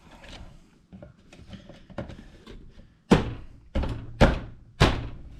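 Four sharp thunks about half a second apart, after a few seconds of quieter handling clatter.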